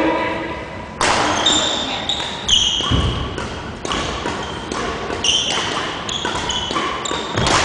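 Athletic shoes squeaking in short, high chirps on a wooden gym floor during badminton play, with footfall thuds and a sharp hit about a second in.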